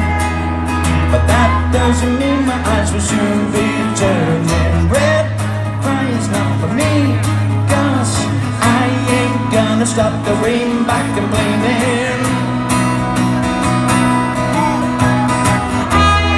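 Live band music over a PA: strummed acoustic guitar with low bass notes and a singing voice, with a trumpet playing near the end.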